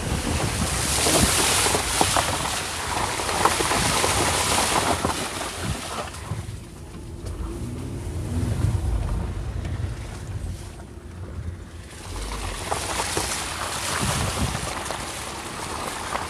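A VW Tiguan 2.0 diesel's wheels splash through muddy puddles, with wind buffeting the microphone. About six seconds in it drops to a quieter low rumble from the car for several seconds, then the splashing and wind noise return.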